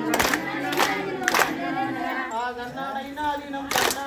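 Group of voices singing a kummi song in chorus, unaccompanied. Sharp hand claps land in time with the song: three about 0.6 s apart, then a gap, then another near the end.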